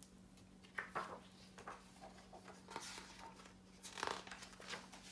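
Pages of a hardcover picture book being opened and turned: a few soft paper rustles and swishes, over a faint steady low hum.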